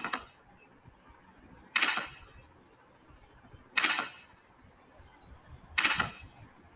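Lottery draw software's fireworks sound effect: a short burst that fades out, repeating about every two seconds, three times, over faint hiss.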